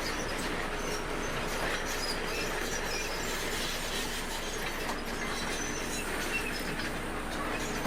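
Crawler bulldozer working: its diesel engine runs under a steady clatter from the steel tracks, with many short high squeaks from the track links and rollers.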